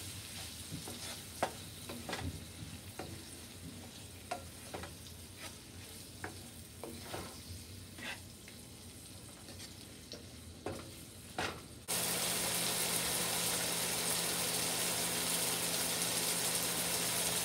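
Wooden spoon stirring chopped tomatoes in hot oil and masala in a nonstick pan, scraping and knocking against the pan at irregular intervals over a faint sizzle. About two-thirds of the way in it cuts suddenly to a louder, steady sizzle as the tomatoes fry down until soft.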